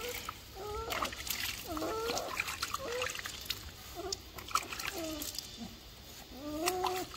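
German Shepherd puppy whimpering: a run of short whines that slide up and down in pitch, among splashes and drips of bathwater.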